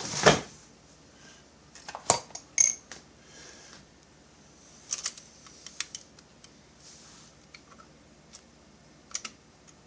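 Small metal saw parts and hand tools clinking and tapping on a workbench during assembly: a sharp knock just after the start, then scattered clicks and clinks.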